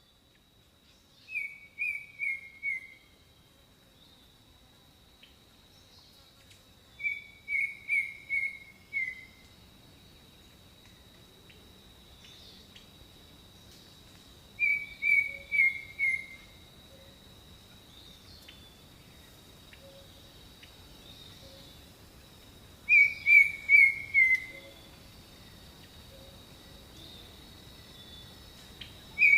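A bird singing a short phrase of four or five quick notes that step downward in pitch, repeated four times with pauses of several seconds between. Under it runs a steady high thin tone with faint scattered chirps in the background.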